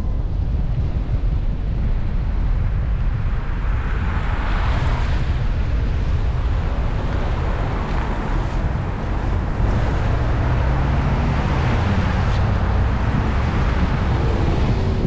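Wind rumbling on the microphone, with a vehicle's engine and tyres on the snowy street swelling as it passes, twice.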